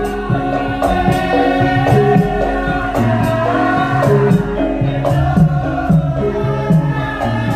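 Javanese gamelan music accompanying a lengger dance: steady pitched metallophone notes over repeated low drum strokes.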